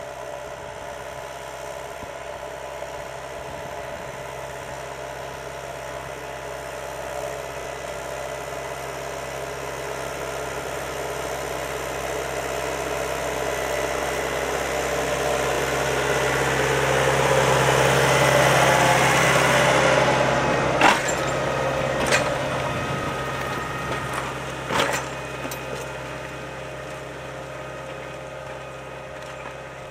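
John Deere 6310 tractor's diesel engine running steadily under load while pulling a three-furrow reversible plough, growing louder to a peak about two-thirds of the way through and then fading. A few sharp clunks follow shortly after the peak.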